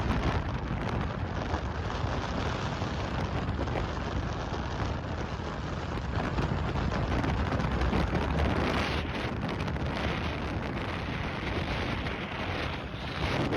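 Strong wind buffeting the microphone: a loud, unbroken rush of noise, heaviest in the low end, easing briefly near the end.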